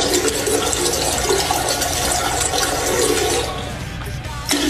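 Toilet flushing: water rushes into the bowl, easing off about three and a half seconds in, then swells briefly again near the end.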